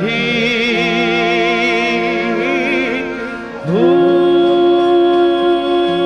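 Male voice singing a Punjabi devotional song with wavering ornaments, accompanied by harmonium and bowed sarangi. About two-thirds of the way in, the voice slides up into a long held note over a sustained harmonium chord.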